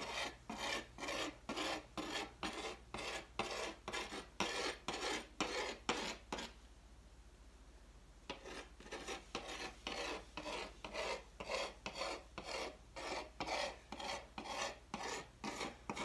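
Hand scoring tool scratching back and forth across a clay slab, rapid repeated strokes at about two or three a second, with a pause of nearly two seconds partway through. The rough scratching is the slab being scored so that it will bond with slip when joined.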